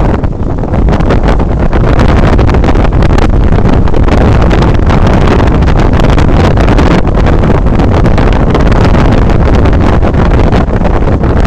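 Steady, loud rush of wind buffeting the microphone with the running noise of a moving vehicle.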